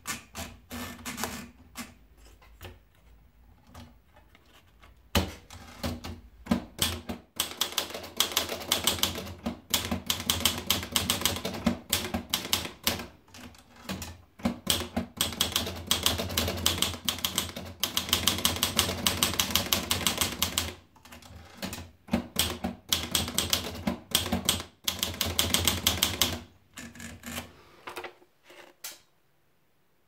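Olivetti Dora manual portable typewriter: scattered clicks as the paper is wound in, then rapid keystrokes clacking in long runs broken by a few short pauses between lines, ending in a few separate clicks.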